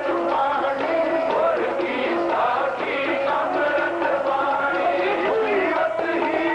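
Sikh kirtan: a hymn sung to harmonium accompaniment, the voice rising and falling over the harmonium's held notes.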